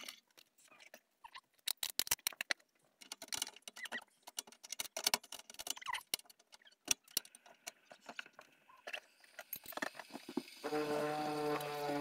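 Mugs, utensils and containers clinking and tapping at a campervan galley bench while coffee is made. Near the end a steady humming whine starts and sags slightly in pitch: the campervan's water pump running.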